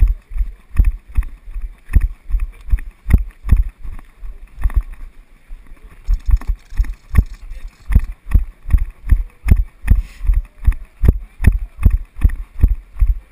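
A runner's footfalls thudding through a body-mounted action camera, a steady beat of about three low thumps a second at running pace.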